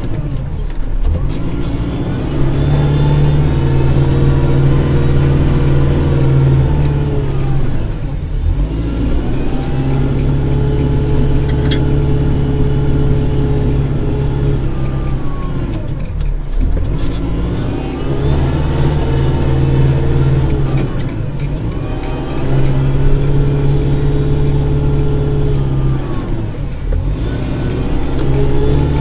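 Kubota tractor's turbocharged diesel engine running at working revs, its pitch dipping and recovering every six to eight seconds as it takes load and eases off.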